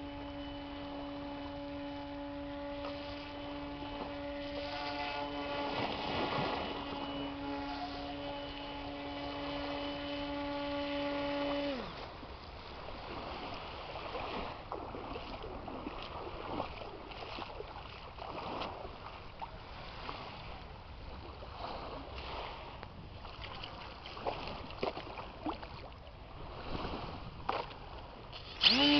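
Small electric motor and propeller of a hand-made RC airboat running with a steady hum, then winding down and stopping about twelve seconds in. Water washing and splashing follows, and near the end the motor spins up again loudly.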